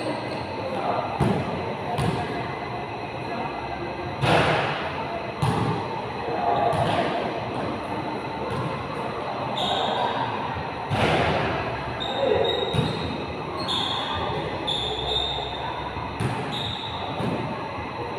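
Basketball bouncing and thudding on a hard court in a large echoing gym, with a few short high squeaks of shoes on the floor and players' voices calling out.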